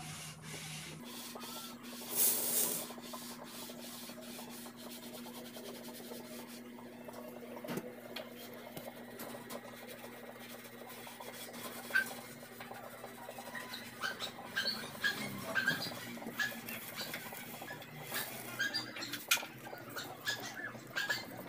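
Hamster nibbling and chewing apple pieces: many small, quick crunching clicks, busier and louder in the second half. A short rustle comes about two seconds in.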